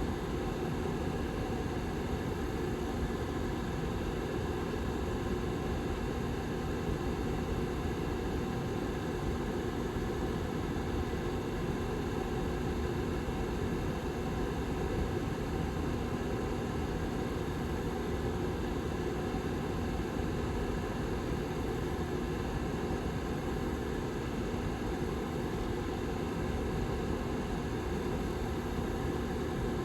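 Lasko Model 755320 tower heater's rear fan running steadily: an even whir of moving air with a low, steady hum under it.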